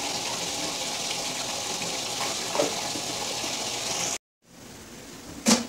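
Steady sizzle of mackerel frying in oil under a glass wok lid. About four seconds in it cuts out abruptly, gives way to a fainter hiss, and a single knock comes near the end.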